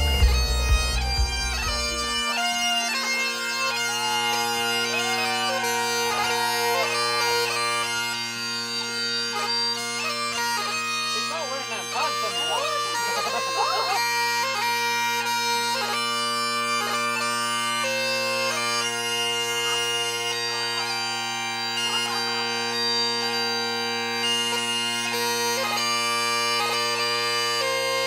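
Great Highland bagpipes playing a tune: steady drones held under the chanter's melody. A low rumble fades out about two seconds in.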